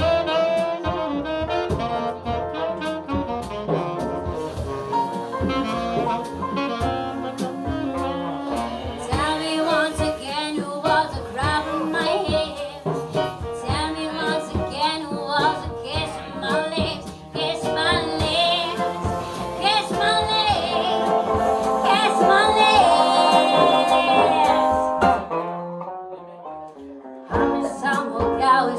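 Live jazz-blues band playing, with a saxophone lead over piano, double bass and drums. The band drops back briefly near the end, then picks up again.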